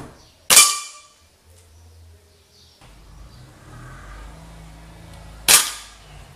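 Two air rifle shots about five seconds apart from a Crosman Nitro Venom Dusk gas-ram rifle, each a sharp crack as the pellet strikes the metal targets; the first is followed by a brief metallic ring, and the second knocks a tin can.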